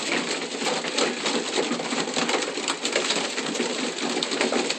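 Racing pigeons in a loft: a dense, steady patter of small clicks and scuffs from the flock.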